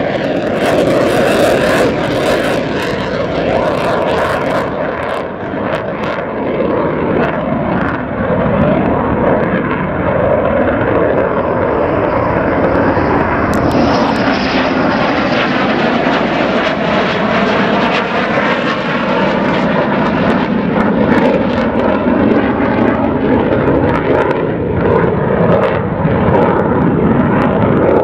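Continuous loud jet engine noise from USAF F-15 fighter jets flying past and banking away. The twin turbofan engines give a rushing roar, with a sweeping, hollow shift in tone about halfway through as a jet passes.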